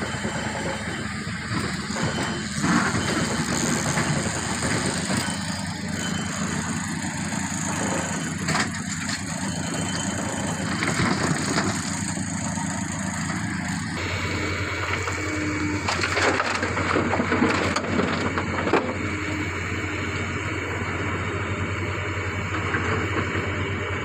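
Hydraulic excavator's diesel engine running steadily while it loads rocky red overburden into a steel dump-truck body, with rocks and earth clattering and crushing into the bed at intervals. The engine sound changes about halfway through.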